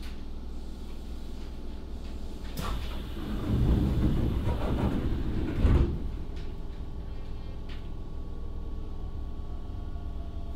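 The sliding passenger doors of a Hokuso Railway 9100-series train closing: a click, about three seconds of door-engine and door-leaf noise, then a thud as the doors shut. The car's steady hum follows.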